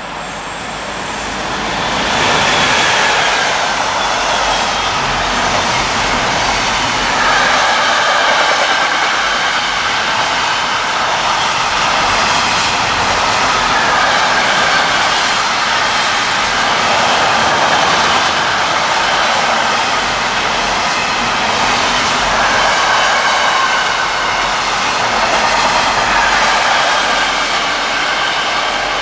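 Container freight train hauled by an HHLA class 386 Vectron electric locomotive passing close by: it gets loud about two seconds in as the locomotive goes by. Then a long run of loaded container wagons rolls past steadily, wheels on rail with wavering high whining tones over the rolling noise.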